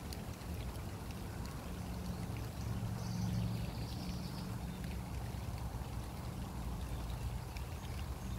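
Rain falling on grass and leaves: a steady hiss with scattered faint drop ticks over a continuous low rumble, with a brief high sound about three seconds in.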